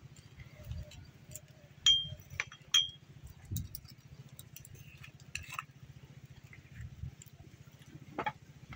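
A spoon clinking against a dish twice, about a second apart, each clink ringing briefly, with a few softer taps around them, as spices are added to a chicken marinade.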